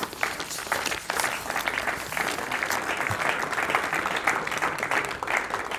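Audience applauding: many people clapping at once, a dense steady patter of claps that thins out near the end.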